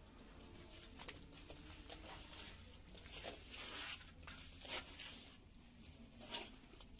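Wet cement mortar being spread and scraped onto a lightweight aerated concrete block wall with a wooden float: a series of short rasping strokes about a second apart, the loudest a little before the end.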